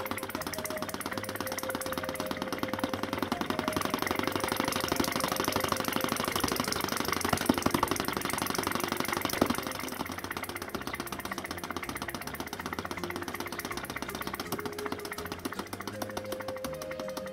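Small gas-fired vacuum (flame-licker) engine running on its own, with a rapid, even clatter of clicks from its steel piston in the cast-iron liner and its valve gear, and a couple of louder knocks near the middle.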